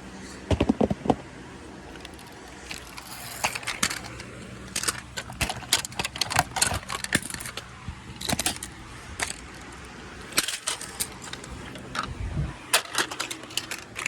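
Irregular runs of sharp clicks and clatter, bunched in quick flurries, over a steady low hum.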